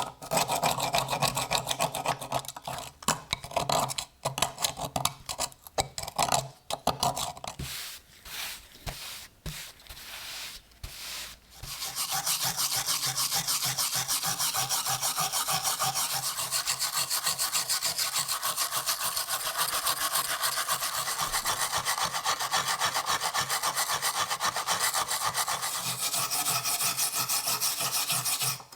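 A hand tool scraping and rubbing against the rusty metal of an old pocket knife during rust removal. For about the first ten seconds it comes in irregular strokes with short pauses, then it settles into a steady, fast back-and-forth rasping.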